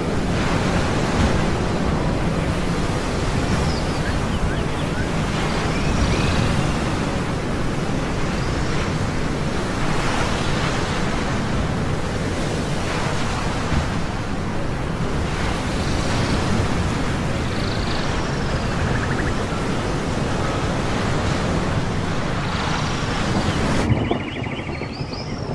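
Ocean surf: a steady rush of waves that swells as they break every few seconds, with faint short high-pitched calls several times.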